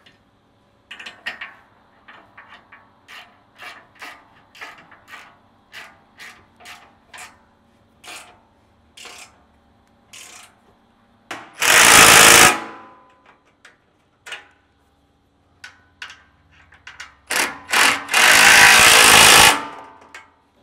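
Hand ratchet with an Allen socket clicking in short strokes, about two clicks a second, as skid plate bracket bolts are tightened. Then come two loud bursts of a Ridgid cordless impact driver hammering bolts home, a short one past the middle and a longer one near the end; these are the loudest sounds.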